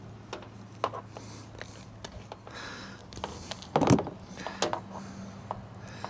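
Hand tool work on a wire: light clicks and handling sounds from wire strippers or crimpers as an eyelet terminal is fitted to a wire end, with one louder knock about four seconds in. A faint steady low hum runs underneath.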